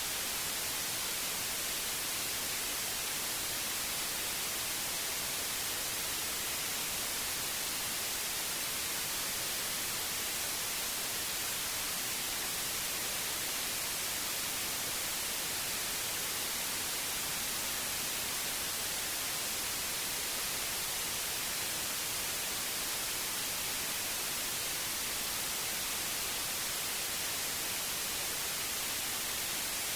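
White noise: a steady, even hiss, strongest in the high frequencies, unchanging throughout.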